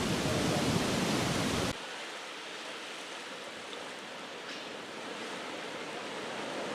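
Surf washing on a beach: a steady rush of wave noise. About two seconds in it cuts abruptly to a quieter, thinner wash without the low rumble, which then slowly swells again.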